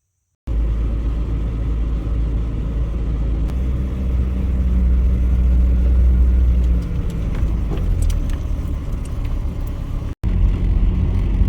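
Truck driving, a steady low rumble of engine and road noise that drops out briefly just after ten seconds in.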